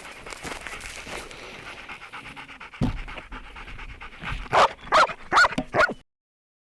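A decoy dog panting rapidly, then four short, loud cries in quick succession near the end.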